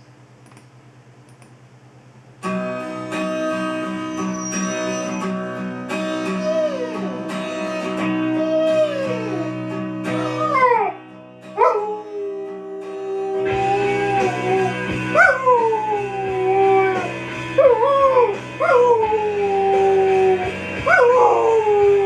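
A dog howling along to a guitar-led song. The music starts about two seconds in. The dog's long howls each slide down in pitch, and they come more often in the second half.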